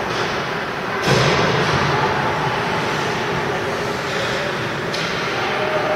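Ice hockey game in an indoor rink: a steady din of arena noise, with a sudden louder thump about a second in and a sharp click near the five-second mark.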